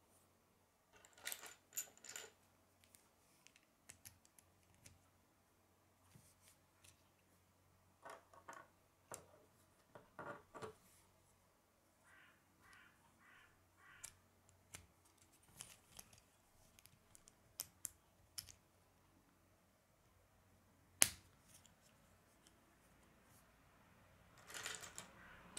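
Plastic K'nex pieces clicking and rattling as they are handled and snapped together: faint scattered clicks, with one sharper snap late on.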